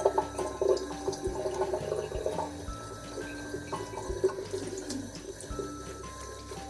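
Bathroom sink tap running, its stream splashing over a makeup brush and fingers as the soap is rinsed out of the bristles.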